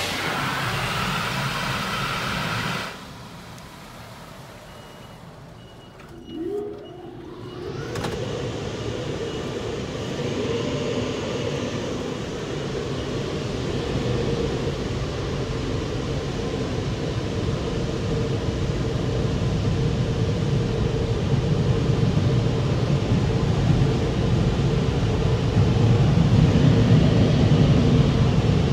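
Touchless car wash heard from inside the car: the gantry's high-pressure water spray hissing on the car stops about three seconds in. The overhead air-dryer blowers then spin up with a rising whine and run steadily, growing louder toward the end.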